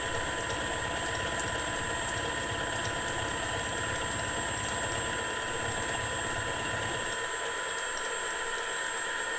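Milling machine running, with an end mill cutting metal and a steady high whine. A low rumble drops away about seven seconds in while the whine carries on.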